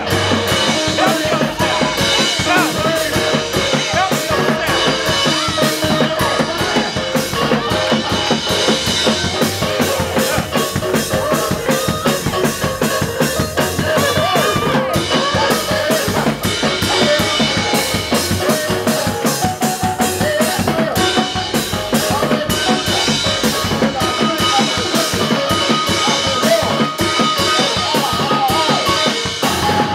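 Gospel praise-break music: a drum kit driving a fast, unbroken beat over other instruments, loud and steady throughout.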